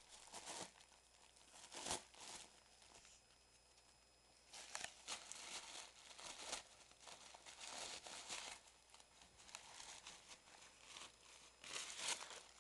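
A Lhasa Apso tearing and chewing paper with its teeth: faint bursts of paper crinkling and ripping. There are a few short bursts early, a long busy stretch through the middle, and more near the end.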